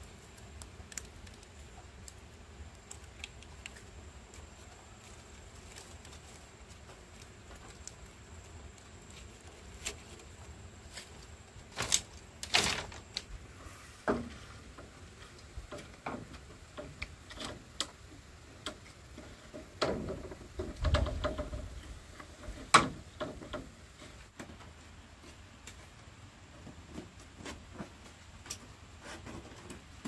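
Scattered light clicks and knocks over a quiet background, with a few louder knocks about twelve seconds in and again between about twenty and twenty-three seconds in.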